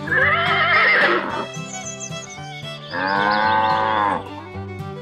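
Steady background music with two livestock calls laid over it: a quavering call about a second long at the start, and a second, longer call from about three seconds in.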